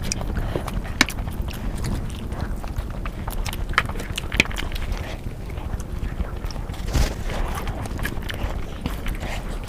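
Close-miked eating sounds: chewing and mouth noises, with scattered sharp clicks and crunches over a low rumble.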